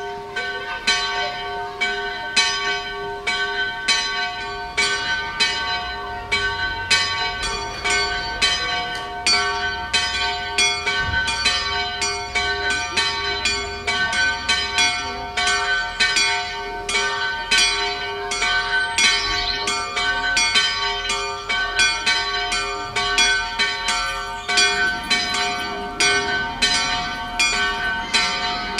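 Several church bells ringing together in a full peal, their strikes falling unevenly at about two a second and each tone ringing on under the next.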